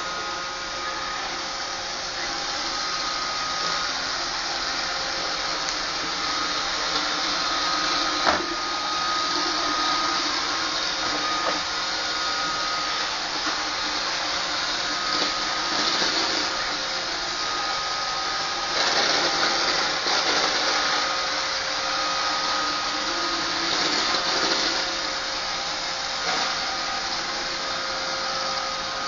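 iRobot Roomba 560 robot vacuum running: a steady whir of its motors and brushes with a high whine that comes and goes, swelling louder a few times, and one sharp knock about eight seconds in.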